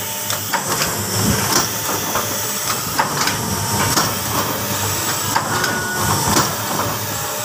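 Automatic soap-wrapping machine running: a steady mechanical clatter of repeated clicks and knocks with a hiss underneath.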